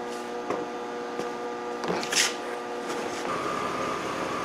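A steady electrical hum with a few light clicks and a short hiss. About three seconds in it gives way to a BMW 325i's straight-six engine idling smoothly, with a thin steady whine over a low rumble, running clean after a leaking DISA intake valve was replaced.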